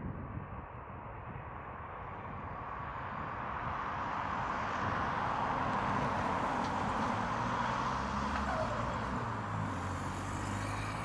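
Jet airliner engines passing. The noise swells over the first few seconds and holds strong through the second half.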